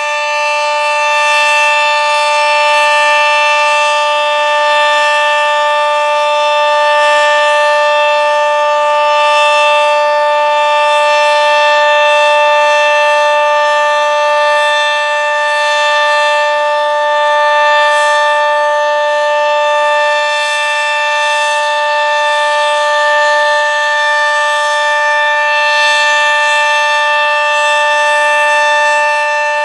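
Sentry 40V2T dual-tone outdoor warning siren sounding the full alert signal: a loud, steady two-tone chord held at constant pitch, its loudness swelling and dipping gently every couple of seconds as the rotating head sweeps around.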